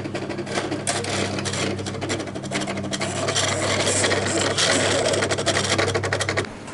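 Belt grinder running with a steel knife blade held against the belt: a steady motor hum under a loud, rough grinding hiss, cutting off abruptly near the end.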